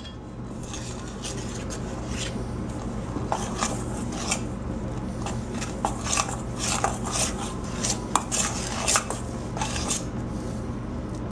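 A fork clinking and scraping against a stainless steel mixing bowl while thick, sticky dumpling dough is stirred, in quick irregular knocks. A steady low hum runs underneath.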